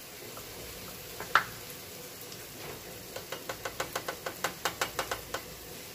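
A small spoon clinking against the glass bowls of a steel masala box while spices are scooped out: one click, then about a second later a quick run of light, even clicks, about seven a second, for two seconds or so.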